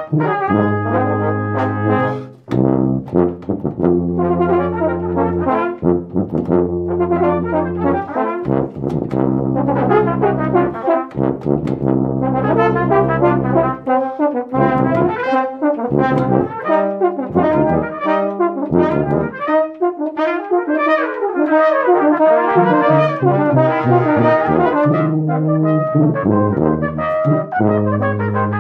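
Brass ensemble playing, with long held low notes under moving upper parts and a brief break about two seconds in.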